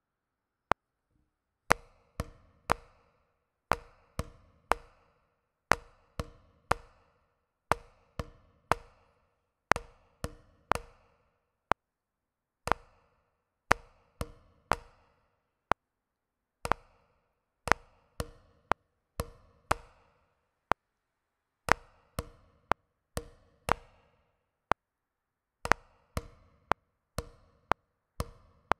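Drum strokes played with sticks, reading out a rhythm of quarter and eighth notes in short groups broken by rests. Under them a click ticks steadily about once a second.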